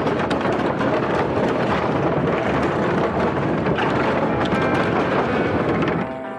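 Mountain bike tyres rolling over the boards of a wooden plank bridge: a dense rumbling clatter full of small knocks, mixed with wind buffeting the microphone. It drops away abruptly near the end.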